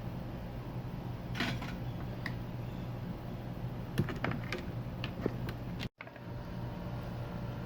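Steady low machine hum at the workbench, with a few faint light clicks and taps of soldering work on a TV power board, and a brief cut to silence about six seconds in.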